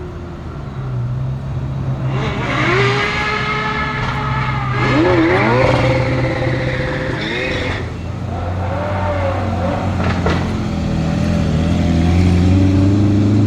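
High-performance car engine revving and accelerating, its pitch rising and falling several times over a strong low drone.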